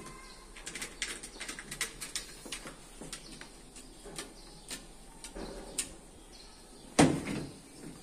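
Hands working at the sheet-metal top of a washing machine: a run of small clicks and taps, then one loud, heavy thump about seven seconds in.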